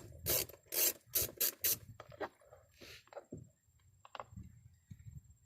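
Ratchet with a 10mm socket clicking in short rasping strokes as it backs out a door-panel bolt, about five strokes in the first two seconds, then fainter scattered clicks and tool handling.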